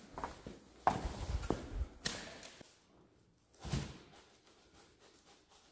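Scattered footsteps and knocks from things being handled, in a few short bursts over the first two seconds and once more about three and a half seconds in; otherwise near quiet.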